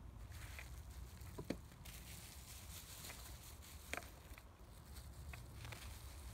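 Faint handling sounds as small wind-generator parts are unpacked: clear plastic bags rustling and a few light clicks and knocks of parts on the table, the sharpest about a second and a half in and about four seconds in, over a low steady rumble.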